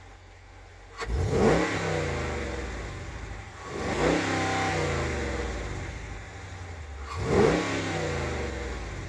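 2018 Dodge Charger R/T's 5.7-litre Hemi V8 breathing through an Airaid cold air intake, idling and then revved three times, each rev climbing quickly and falling back to idle. The intake suction is heard close to the open filter and sounds real deep.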